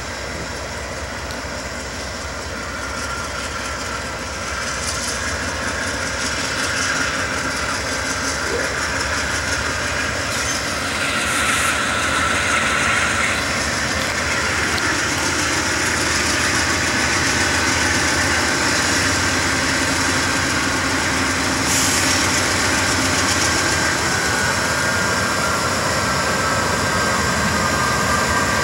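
Norfolk Southern freight train led by GE D9-44CW and AC44C6M diesel locomotives, engines running as it approaches, growing steadily louder. Near the end a thin high tone slides down in pitch.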